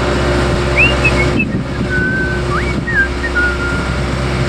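A small engine running steadily under a rushing noise, with a few short, high, gliding chirps in the second half.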